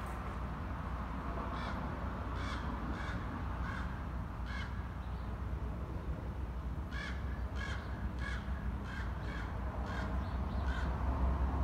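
Bird calling with short, crow-like caws in two bouts, about two calls a second, with a pause of a couple of seconds between the bouts.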